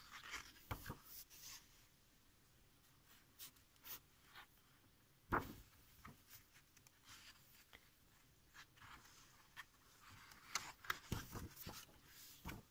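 Paper pages of a large, thick book being handled and turned by hand: faint scattered rustles and brushes of paper, with a more distinct one about five seconds in and several more near the end.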